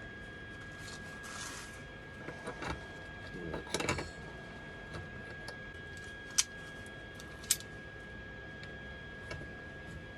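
Light handling of metal parts as a steel gusset is fitted onto the axle: a few soft scrapes and knocks, then two short sharp clicks, over a steady faint high-pitched whine.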